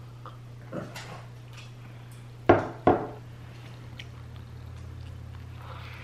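Tableware knocking on a table: two loud sharp knocks about half a second apart, after a couple of lighter clicks, over a steady low hum.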